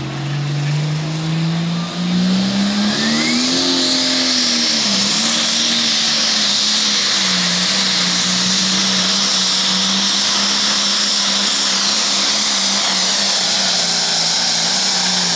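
International limited pro stock pulling tractor's turbocharged diesel engine at full power as it launches and drags the sled: the engine note climbs over the first few seconds, dips briefly, then holds steady under load. A loud high hiss rides over the engine.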